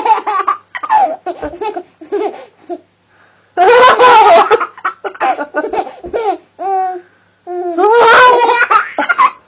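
A young baby laughing in repeated bursts of high-pitched belly laughter, the longest and loudest bursts about four and eight seconds in, with short chuckles between.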